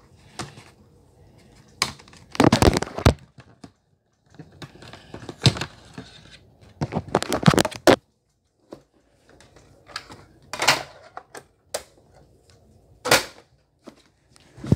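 Handling noise from a plastic DVD case and a portable DVD player being handled close by: irregular clicks, knocks and short rustling scrapes, in several clusters.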